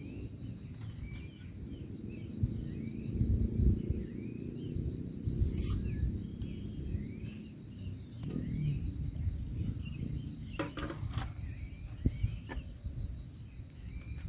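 Outdoor ambience of insects buzzing steadily in several high pitches, with a short chirping call repeated about once a second, over a low rumble. A few sharp clicks sound about six seconds in and twice near eleven seconds.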